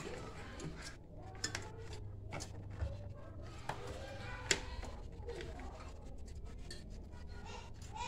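Light clicks and rustling from hands handling the wiring and bimetal defrost thermostat at a refrigerator's evaporator coil, with a few sharper clicks, the loudest about four and a half seconds in, over a low steady hum.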